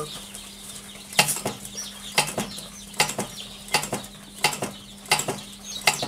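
Automatic chick-vaccination injector humming after being switched on. About a second in, a run of about seven double mechanical clicks begins, one every 0.7 seconds or so, as its microswitch lever is pressed repeatedly to prime the syringe with Marek's vaccine.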